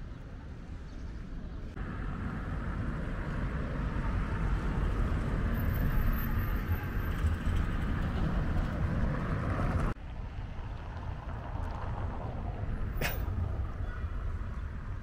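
City street traffic noise: a steady rumble of passing vehicles that builds over the first part and drops off abruptly about two-thirds of the way through, with a brief sharp sound near the end.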